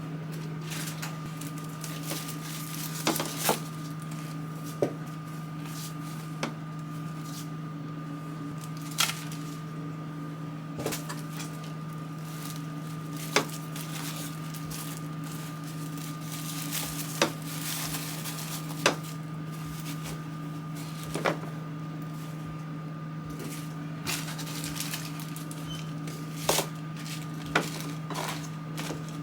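Toiletry and cleaning bottles and storage bins being handled and set down in a bathroom cabinet: scattered short knocks and clicks, about a dozen, over a steady electrical hum.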